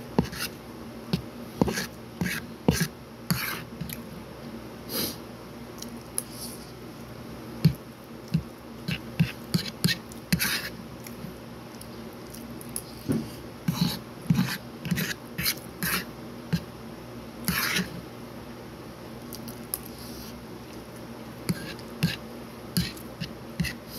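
Close-up chewing and lip-smacking of a person eating fried rice: irregular wet mouth clicks and smacks, a few at a time with short gaps, over a faint steady hum.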